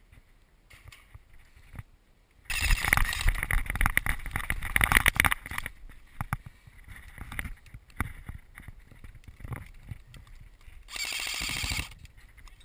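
A sudden loud stretch of irregular noise and knocks begins about two and a half seconds in and fades after about three seconds. Near the end comes a rapid, even burst lasting about a second: an airsoft electric rifle firing on full auto.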